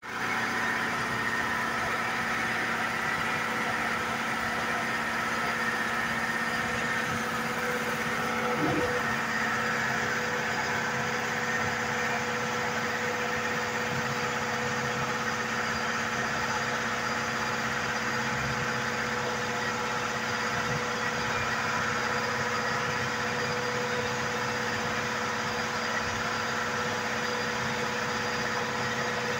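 A 7.5 HP high-pressure air compressor running steadily, a constant mechanical hum with a steady underlying tone.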